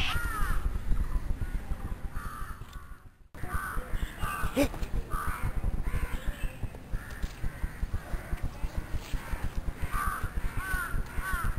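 Crows cawing repeatedly in short groups over a low rumbling background; the sound drops out briefly about three seconds in.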